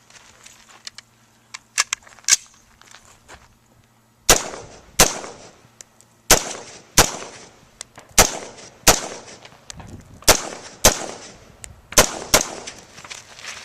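Semi-automatic rifle fired in pairs: ten loud shots in five pairs about two-thirds of a second apart, each with a short echo tail. Two fainter shots come a couple of seconds before the first pair.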